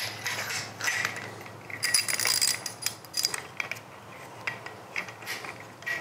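Socket ratchet wrench with a five-eighths socket clicking in short irregular runs, with metal clinks, as a nut is run down onto the crank assembly's drive shaft.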